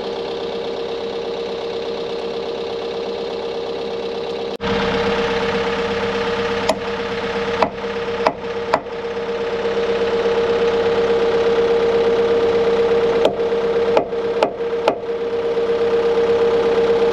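An engine running at a steady pitch, suddenly louder about a third of the way in. Over it, from about the middle on, a hammer strikes a steel punch on the excavator's top-roller bracket, about nine sharp blows in small groups.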